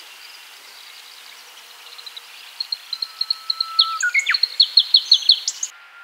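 Black-browed reed warbler singing: a rapid series of short, high, repeated chirping notes that grows louder from about two seconds in, with a few quick down-sweeping notes, and cuts off suddenly near the end.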